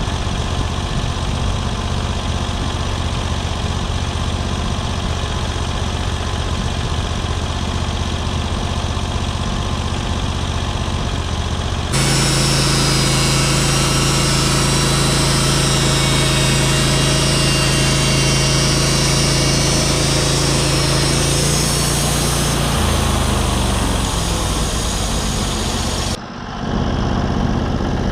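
A sawmill's engine and saw running steadily. About halfway through it turns abruptly louder, with a strong hum and a high hiss; a few seconds before the end the pitch falls away, with a brief dip in level just before the end.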